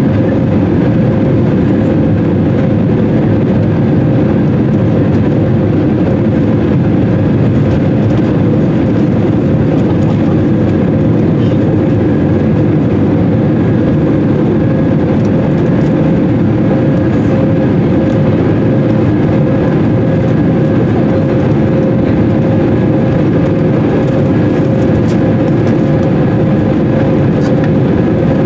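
Airbus A320 cabin noise heard at a window seat over the wing: a steady, even rush of engine and airflow noise with a constant hum-like tone running through it.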